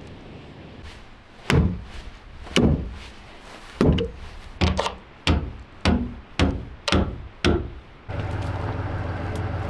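About nine heavy knocks, like wood being struck, spaced under a second apart. Then, about eight seconds in, a diesel truck engine starts to be heard, idling steadily.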